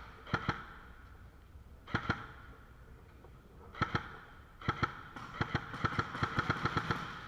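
Airsoft guns firing: a few single shots spaced a second or two apart, then a quicker string of shots at about five a second near the end.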